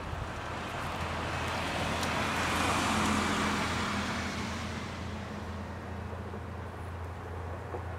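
A vehicle passes close by, its noise swelling to a peak about three seconds in and then fading, over a steady low engine hum.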